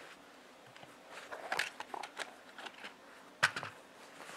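Handling noise from a canvas haversack: rustling and scattered soft clicks as a leather strap on a pouch is worked open, with one sharp click about three and a half seconds in.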